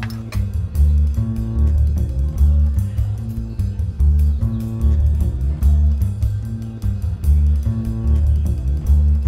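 Background music with a loud, repeating bass line.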